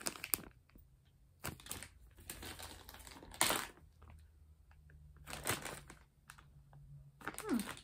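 Plastic zip-top bag of wax melts crinkling and clicking as it is handled and opened, with a few louder rustles.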